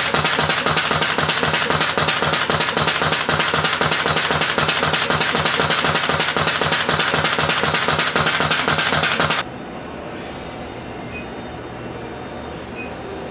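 Pneumatic cutter head of a servo feed-and-cut machine cycling rapidly, a loud, evenly spaced clatter of cuts, several a second, as the servo rolls feed stock and the cutter chops it to length. The clatter cuts off abruptly about nine seconds in, leaving a quieter steady hum.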